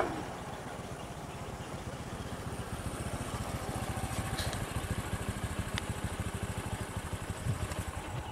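Engine of a stopped safari jeep idling, a steady low chugging.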